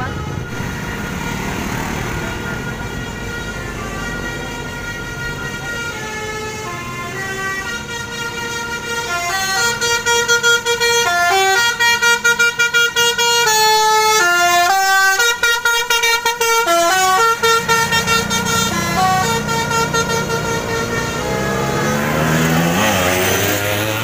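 Basuri telolet musical air horn on a Volvo B11R double-decker bus playing a tune of stepped notes, loudest in the middle with short breaks between notes, over the bus's diesel engine running.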